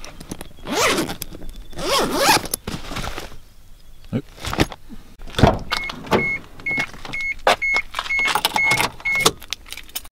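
Rustling, clicks and knocks of gear being handled inside a van. In the second half a van's electronic warning chime beeps, one short high beep about twice a second for a few seconds.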